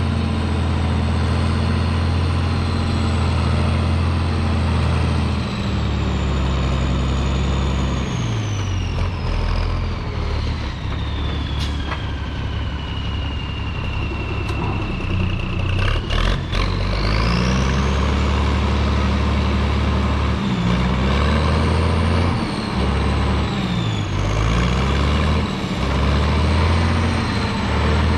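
Heavy diesel engine running under load. Its revs drop about a third of the way in and climb again a little past the middle, with a high whine that falls and rises along with the engine. A few sharp knocks come near the middle.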